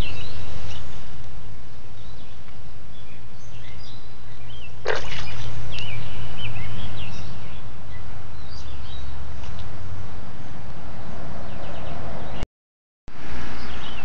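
Frogs calling to mate at a small pond: a low, steady droning call, with birds chirping now and then above it. About five seconds in a quick sweep falls sharply in pitch, and near the end the sound cuts out for about half a second.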